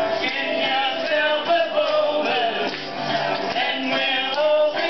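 Acoustic country-folk band playing a song live, with strummed guitars and mandolin under voices singing.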